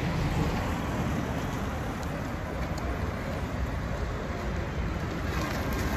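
Steady rumble and hiss of road traffic, with no single event standing out.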